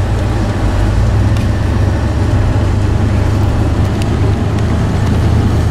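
Pickup truck engine running steadily, a constant low hum heard from inside the cab.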